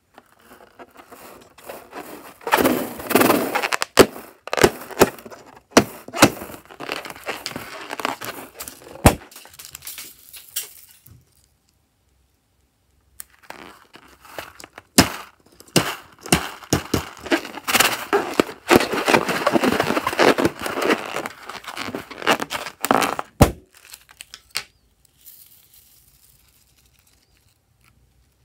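Rubber filler balloons handled over a glass bowl of slime, emptying plastic beads and sequins onto it: crinkling rubber with many sharp clicks and knocks. It comes in two long bursts with a short pause between.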